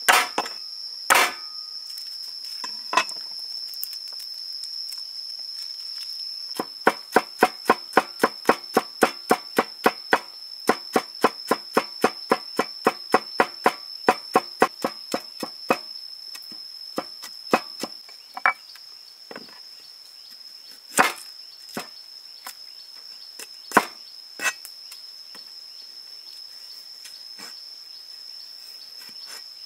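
Cleaver blade chopping garlic on a wooden cutting board: a few single knocks, then a fast even run of about three to four chops a second for some nine seconds, then a few more scattered knocks. A steady high-pitched insect drone runs behind.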